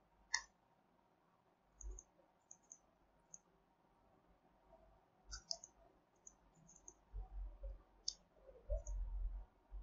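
Faint, scattered clicks of a computer mouse and keyboard keys, some in quick pairs, with a few soft low thumps near the end.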